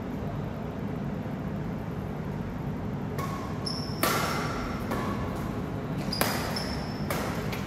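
Badminton rally on an indoor court: a series of sharp racket hits on the shuttlecock, mixed with short squeaks, starting about three seconds in over a steady hall hum. The loudest hits come about four and six seconds in.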